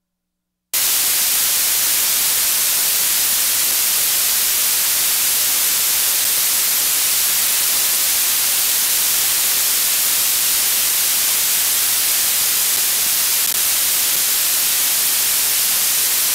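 Steady white-noise static hiss from the analog FPV video receiver's audio channel, cutting in abruptly under a second in; no motor whine can be heard in it.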